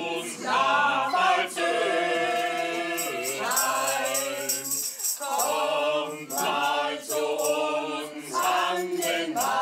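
Music: a group of voices singing together, with a shaker rattling along for a couple of seconds about three seconds in.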